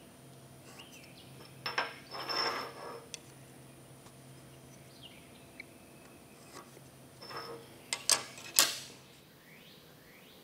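Short lengths of 3/4-inch square steel bar stock clinking and scraping against a steel fixture table as they are handled and slid into place: a few clinks and a scrape about two seconds in, and a quick run of sharper clinks about eight seconds in.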